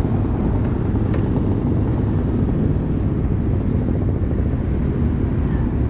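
Motorcycle engines running at low speed in a crowded group of bikes, a steady low rumble.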